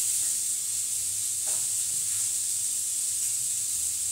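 Steak sizzling steadily in a frying pan on a gas stove.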